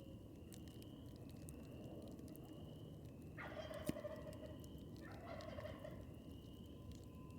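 Turkey gobbling twice in quick succession about halfway through, over the steady crackle of a wood campfire, with one sharp pop from the fire during the first gobble.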